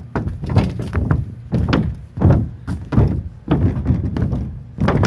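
Footsteps of a heavy man walking on a galvanized sheet-metal mobile home roof, about two steps a second.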